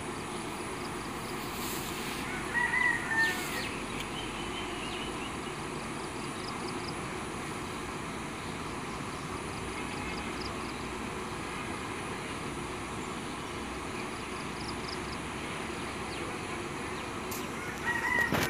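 Steady outdoor background noise. About three seconds in, a short high-pitched call sounds twice, and once more at the very end.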